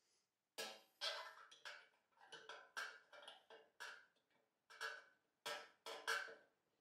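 Small brass fitting being fitted and turned by hand on the burner cross-arm of a Tilley lamp: a run of sharp metallic clicks and taps, about two or three a second, each with a brief ring.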